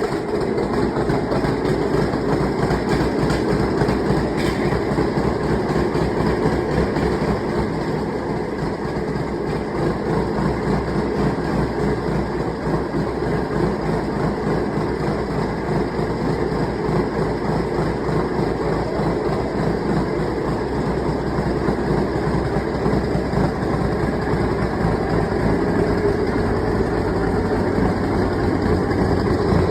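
A vehicle's engine running steadily as it drives, with a fast, even rumble of engine and road noise heard from inside the cab.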